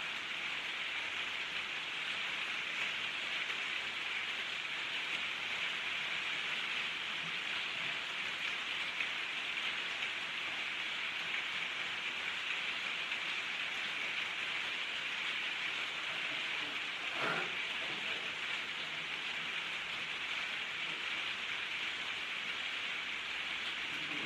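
Heavy rain falling steadily, with one brief knock about two-thirds of the way through.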